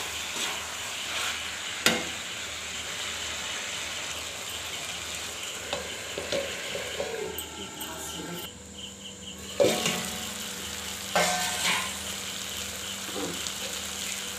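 Potato curry frying in oily masala in a kadhai with a steady sizzle, stirred with a spoon that scrapes and clinks against the pan a few times. The sizzle drops off briefly past the middle while a steel plate sits over the pan as a lid.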